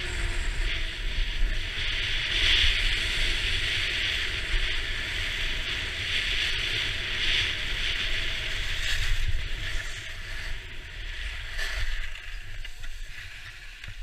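Skis sliding over packed snow with a steady hiss, with wind rumbling on the microphone; the hiss dies away near the end as the skier slows to a stop.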